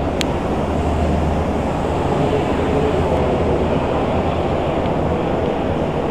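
Steady, loud rumbling din of a large indoor exhibition hall, with no distinct source standing out.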